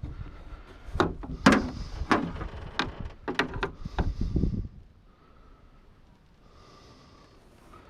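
A string of sharp knocks and clunks over a low rumble, about half a dozen in three or four seconds; then both stop and only a faint steady background is left.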